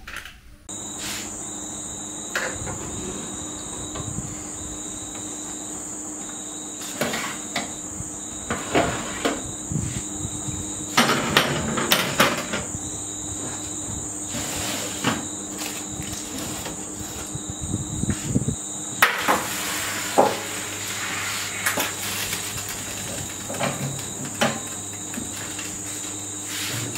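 High, steady insect trill, with scattered knocks and clatters of objects being handled, clustered about eleven seconds in and again around twenty seconds.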